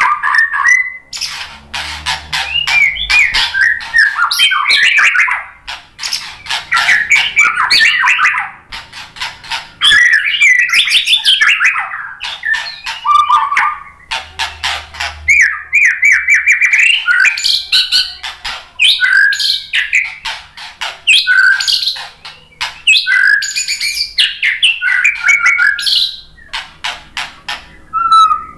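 White-rumped shama (murai batu) singing a long, varied song: loud whistled phrases that glide up and down, mixed with rapid clicking rattles, with only brief pauses between phrases.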